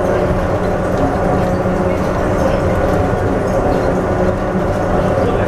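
Bombardier rubber-tyred automated people mover running at steady speed through a tunnel, heard from inside the car: an even rolling rumble with a constant motor hum.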